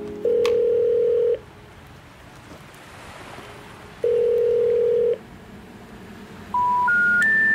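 Telephone call tones. A steady ringing tone sounds twice, each ring about a second long, then three short beeps step upward in pitch, like the special information tone that comes before a 'number cannot be reached' announcement.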